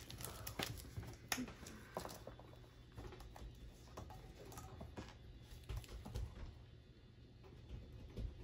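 Faint, scattered light taps and clicks as a wet paint-pour canvas is handled and tilted on a metal wire rack, over a low background hum.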